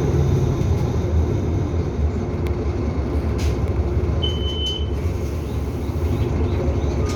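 Nova Bus LFS city bus running with a steady low engine rumble. About four seconds in there is a brief high-pitched tone lasting under a second.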